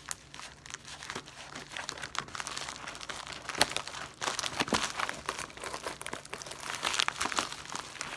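A plastic USPS mailer bag crinkling as it is handled and cut open with scissors: irregular crackles with sharper bursts, the strongest in the middle and near the end.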